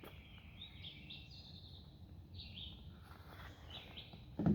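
Small birds chirping repeatedly over a low outdoor rumble, with one sharp knock just before the end.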